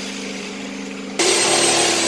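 Electric power tool cutting the welded plastic tub of a Candy washing machine: a steady motor sound with a hum. About a second in it jumps abruptly louder, with a high whine and hiss.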